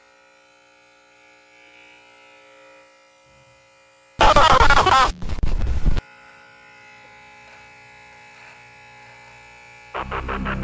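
Remington Color Kit electric hair clipper buzzing faintly and steadily while trimming a moustache. About four seconds in there is a loud burst of noise lasting about two seconds. Music starts just before the end.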